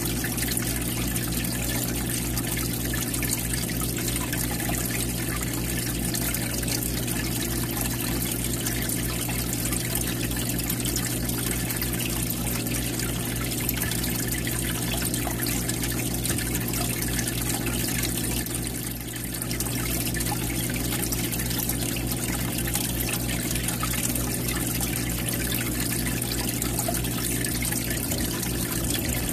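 Aquarium filter outflow water trickling and splashing into the tank at the surface, over a steady low hum.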